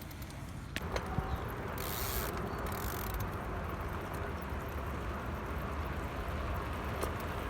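Bicycle rolling along: a steady rush of tyre and road noise with the freewheel ratcheting, and a couple of sharp clicks about a second in.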